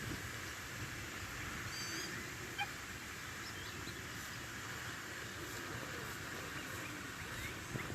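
A few short, high bird chirps about two seconds in, with fainter ones later, over steady outdoor background noise.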